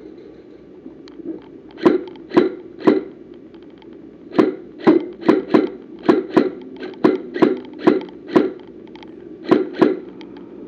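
Airsoft gun firing single shots: about fifteen sharp cracks in irregular groups, three, then a run of about ten, then two near the end.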